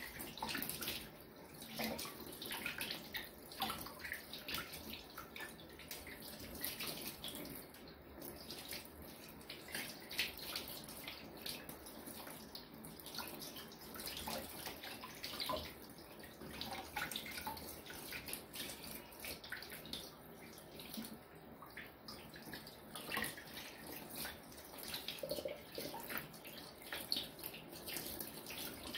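Tap water running into a kitchen sink while fish are rinsed and cleaned by hand under it, with irregular splashes throughout.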